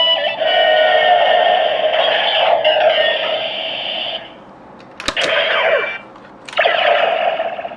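Electronic sound effects from a DX Neo Decadriver toy transformation belt, played through its small built-in speaker: a long synthesized effect, then two sharp plastic clicks about a second and a half apart, each setting off a shorter burst of effects.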